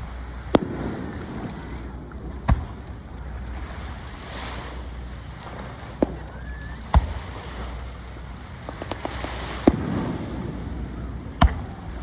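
Fireworks shells bursting: six sharp bangs at irregular spacing, with a brief run of small crackles about nine seconds in, over a steady low background rumble.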